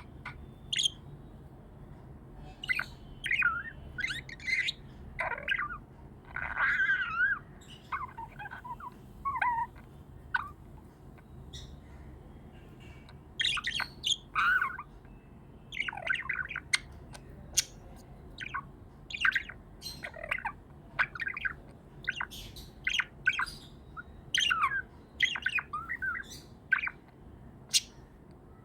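Budgie (budgerigar) chirping and warbling in quick bursts of short, high chirps and twittering phrases, with a few seconds' lull a little before the middle: happy budgie chatter.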